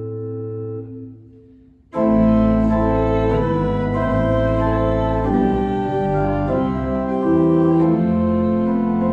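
Church organ playing an interlude. A soft held chord fades away over the first two seconds, then the organ comes in loudly with a full chord and plays on with moving notes.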